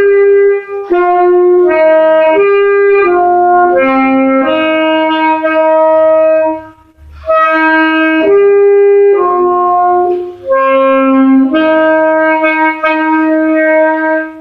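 Saxophone playing a slow melody in long held notes, with short pauses between phrases, the longest about halfway through.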